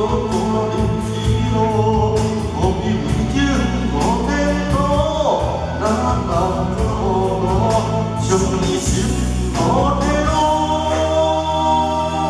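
A man singing a song into a handheld microphone over instrumental accompaniment, his voice carrying a gliding melody over a steady backing.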